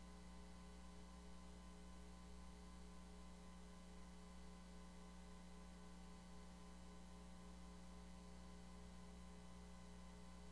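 Near silence: a faint steady electrical hum and hiss, unchanging throughout.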